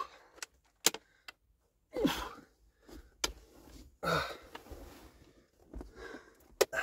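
Heavy lithium leisure battery being lifted and shifted into place: scattered knocks and clicks as it is handled, with a few short scuffing noises.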